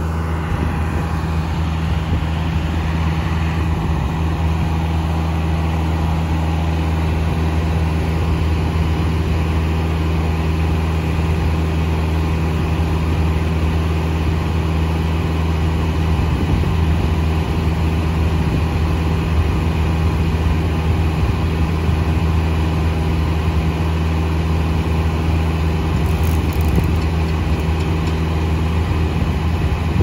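The engine powering a Foley Belsaw circular sawmill runs steadily, with the large circular blade spinning free between cuts. The drone holds an even pitch, with no loading or bogging from a cut.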